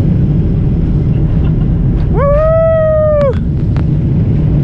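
Boeing 747 cabin at lift-off and initial climb: the four engines at takeoff power and the airflow make a loud, steady low rumble. About two seconds in, a passenger lets out a high whoop that rises and then holds for about a second.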